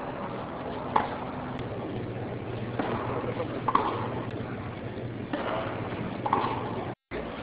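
A tennis rally: sharp racket strikes on the ball, about one every second or two, with a faint crowd murmur and hum behind.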